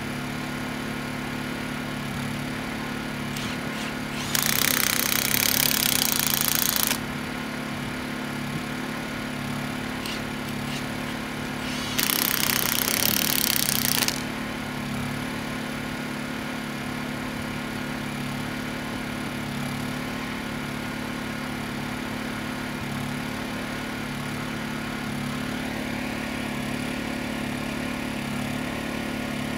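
Power drill driving asphalt anchor screws through a rubber wheel stop, in two runs of about two to three seconds, the first about four seconds in and the second about twelve seconds in. A small engine hums steadily underneath throughout.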